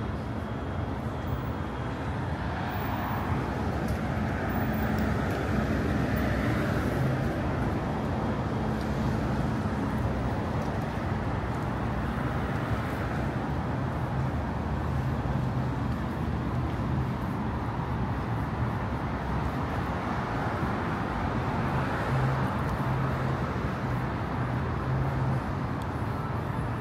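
Road traffic on a city boulevard: a steady wash of passing cars and tyre noise under a low engine hum, with vehicles swelling past a few seconds in and again about twenty seconds in.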